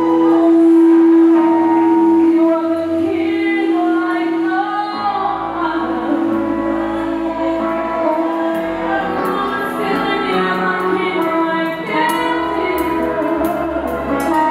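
Live gospel worship music: a woman singing into a microphone over a band with acoustic guitar and keyboard. A long steady note is held for about the first five seconds before the melody moves on.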